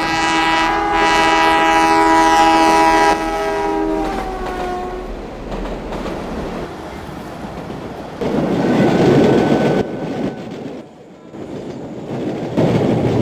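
Train horn sounding one long blast of several tones together for about four seconds, then trailing off. Then the rolling rumble of a train, which swells twice with a short drop in between.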